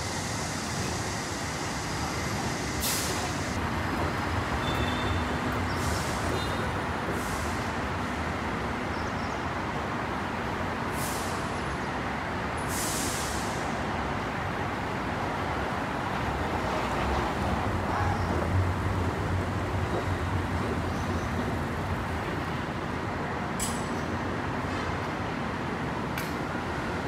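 Steady road traffic rumble with buses, broken by several short hisses of air brakes.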